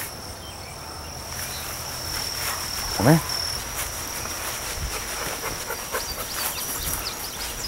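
Insects calling with a steady high-pitched tone, with crackling rustles of leaves and stems in the blackberry brambles and grass during the second half.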